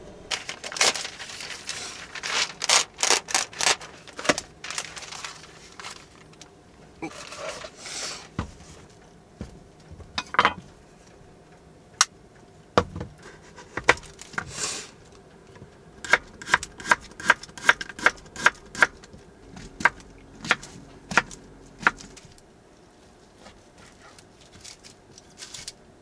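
Kitchen knife cutting kabocha squash and raw pork on a wooden cutting board: sharp knocks of the blade on the board, in scattered clusters and then a regular run of chops at about two a second for several seconds.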